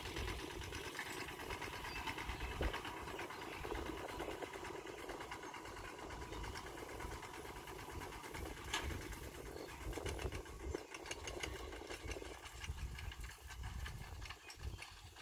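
Small engine of a two-wheel farm tractor pulling a trailer, chugging at a fast even beat. It grows fainter as the tractor moves away, dying down near the end.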